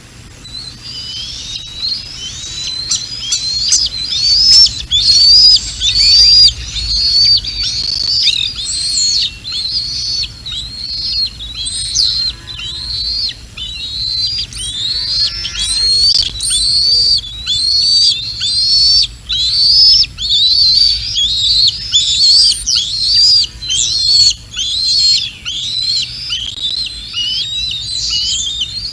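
Juvenile bald eagle calling without pause: rapid, high-pitched chittering calls, several a second, building over the first few seconds and then keeping on. A steady low rumble runs underneath.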